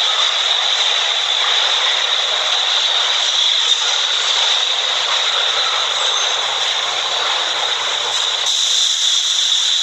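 New York City subway R train moving along the platform: a loud, steady rush of wheels on rail with a strong high hiss.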